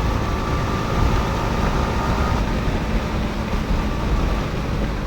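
Yamaha R15 V4's 155 cc single-cylinder engine running at a steady cruise under a steady rush of wind and road noise.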